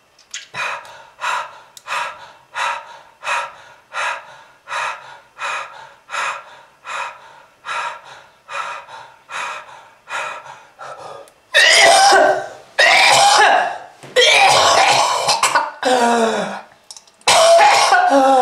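A person coughing. First comes a long run of short, regular coughs, about one and a half a second. Then, from about eleven seconds in, much louder and longer hacking coughs with throat clearing.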